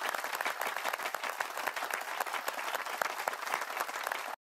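Applause: a crowd clapping, dense and even, cutting off abruptly near the end as an edited-in sound effect.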